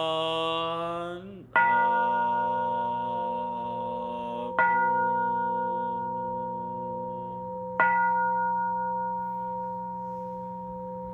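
A chanted note is held and then falls away, followed by a Buddhist bowl bell (kin) struck three times, about three seconds apart. Each strike rings on steadily until the next, and the last one keeps ringing.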